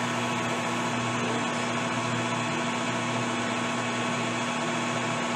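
Metal lathe running at steady speed with its four-jaw chuck spinning: an even motor and gearbox hum with a steady low tone.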